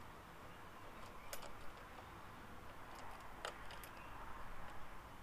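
Faint small clicks and ticks of a bolt being wound by hand into a motorcycle fly-screen bracket, with two sharper clicks about one and a half and three and a half seconds in, over a low hiss.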